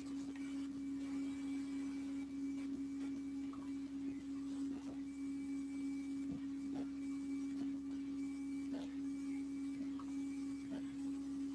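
A steady low hum, one unchanging tone, with faint scattered clicks over the call audio.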